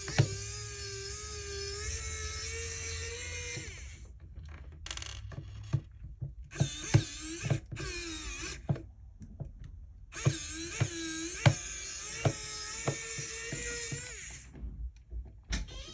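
Small electric screwdriver running in four runs as it backs out the screws of a hair clipper's cover. The first run lasts about four seconds; the later ones are shorter, their whine dipping in pitch under load, with a few clicks in between.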